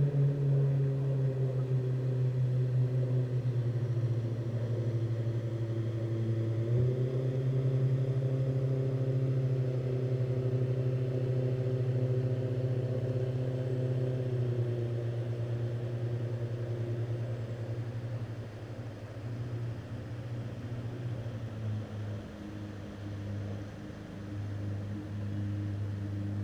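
A boat motor running steadily with a low hum. Its pitch sags at the start, dips sharply and steps back up about seven seconds in, then drops a little twice more, and it eases off slightly in the last third.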